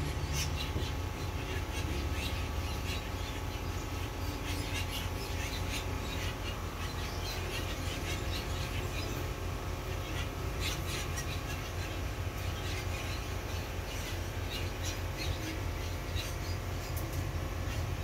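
Small birds chirping, with many short high calls scattered throughout, over a steady low rumble.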